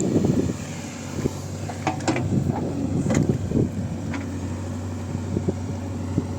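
Backhoe loader's diesel engine running steadily, with a few sharp knocks about two and three seconds in.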